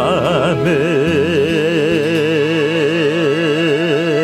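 A male singer holding the long closing note of a gospel song with wide, even vibrato over steady accompaniment; the pitch settles onto the final note about half a second in and is held throughout.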